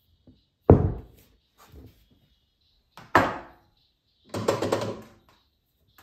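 Knocks and clatter of a solid brass cylinder being handled: a sharp thunk about a second in, another about three seconds in, then a short rattle of metal on metal as the cylinder is pushed into the steel jaws of a lathe chuck.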